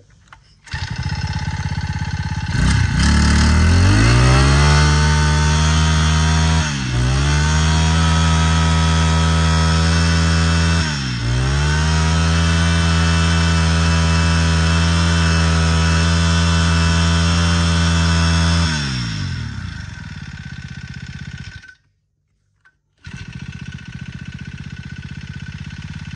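Small Honda four-stroke brush cutter engine running: it idles, revs up to a high steady speed a few seconds in, dips briefly twice, drops back to idle about three-quarters through, cuts off suddenly, then idles again near the end.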